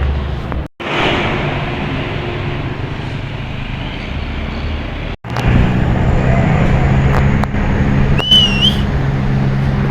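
Makaro 115 bus running in traffic: steady engine hum with road noise. It drops out for an instant twice, and after the second drop, about five seconds in, the hum is steadier and stronger. Near the end there is a short wavering whistle.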